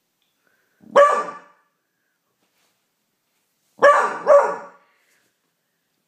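Beagle puppy barking: one short bark about a second in, then two quick barks in a row near four seconds.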